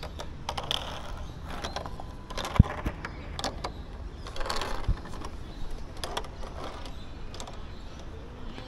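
Scattered metal clicks and rattles of a ropes-course safety lanyard and its clip hardware on the steel cable as the climber moves around a tree platform. There is a sharp knock about two and a half seconds in and a smaller one near five seconds, over a steady low rumble.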